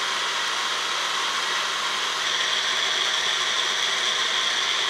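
Personal bullet-style blender running steadily at full speed, whipping eggs, sugar and oil into cake batter, with a constant motor hum under the whirring.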